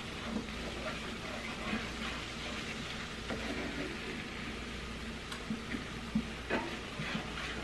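Stuffing mixture with cream cheese sizzling steadily in a skillet over a gas burner, stirred with a wooden spoon, with soft scrapes and taps of the spoon against the pan.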